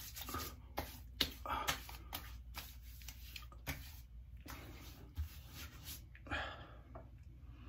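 Hands rubbing together and patting face oil onto the skin of the face: a string of soft, irregular rubs and light slaps.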